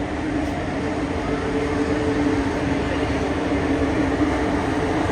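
Train running: a steady rumble with a low, even hum, growing slightly louder.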